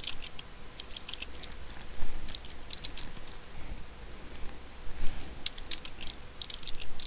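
Computer keyboard typing: keystrokes in short, irregular bursts with pauses between them as a command is entered.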